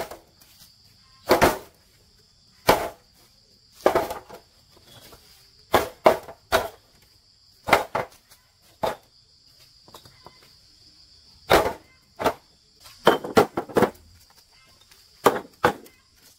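Bricklaying work: about a dozen sharp knocks and scrapes at irregular intervals, some in quick runs, of a trowel and bricks being worked into place. A steady high-pitched insect drone, typical of crickets, runs underneath.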